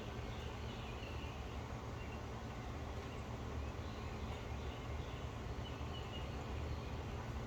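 Birds chirping faintly now and then over a steady low rumble.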